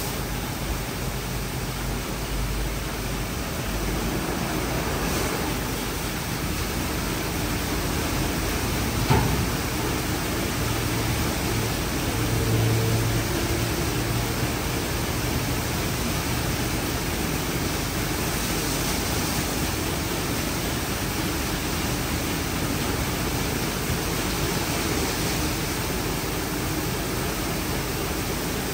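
WashTec SoftCare2Pro rollover car wash at work: a steady hiss of water spraying over the car. There is a single knock about nine seconds in and a brief low hum a few seconds later.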